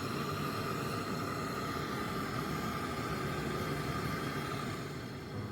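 A steady hiss with a faint high whistle in it, easing off about five seconds in.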